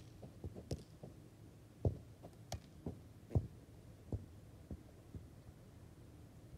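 Irregular soft, dull thumps and knocks, about a dozen, spaced unevenly over a faint low background.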